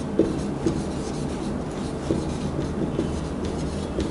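Marker pen writing on a whiteboard: short squeaking and rubbing strokes as letters are drawn, over a steady low hum.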